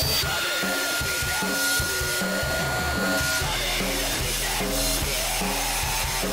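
Harsh noise music: electronic drums beating fast and irregularly under a dense wall of distorted noise, with a steady piercing feedback tone held for about three seconds near the start. A low steady hum comes in about halfway.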